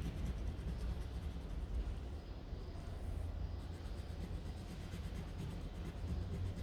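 Faint scratching of colouring on paper, over a low steady hum.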